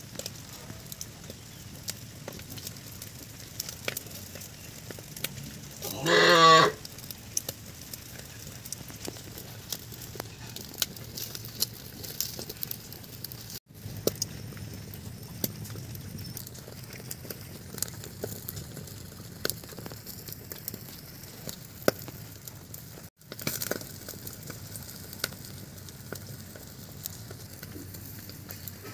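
Open wood fire crackling, with frequent small pops. About six seconds in, a loud animal call with a wavering pitch sounds once for about half a second.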